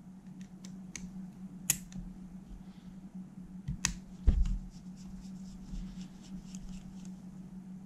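Scattered small clicks and taps of a screwdriver and handled metal and plastic parts on a cassette deck's tape mechanism, two of them sharper, with a dull thump a little after the middle, over a steady low hum.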